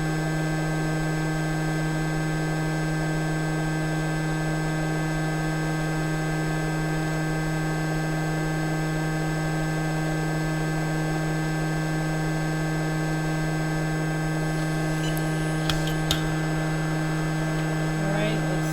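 JBC hot air rework station blowing steadily with a constant electrical hum. Two short clicks come near the end.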